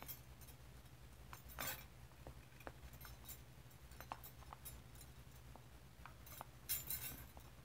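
Oil pastel stroked across paper: faint scratchy rubbing in short strokes, loudest about a second and a half in and again near the end, with a few light ticks over a low steady hum.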